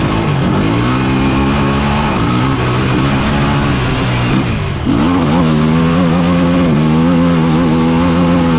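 Off-road vehicle engine running under way, revs rising at first and then holding steady. About five seconds in it briefly drops off and dips in pitch, then picks up and holds steady at higher revs.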